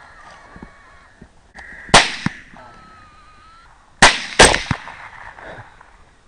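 Rifle shots at feral hogs: a sharp report about two seconds in, then two more close together just after four seconds, each ringing out briefly.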